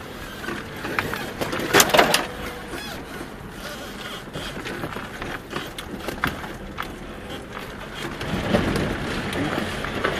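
Lada Niva 21214 breaking through the ice of a frozen stream: the ice cracks and crunches under the wheels, with water sloshing and a rumble underneath. The loudest crash comes about two seconds in, and there is a rougher stretch near the end.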